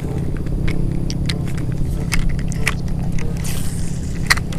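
Irregular clicks and ticks from a cheap baitcasting reel being handled and wound in, with a brief hiss about three and a half seconds in, over a steady low rumble.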